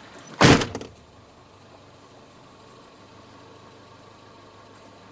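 A car door slams shut about half a second in, then the car's engine idles quietly, heard from inside the cabin.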